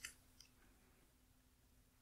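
Near silence: room tone, with a faint click or two in the first half-second.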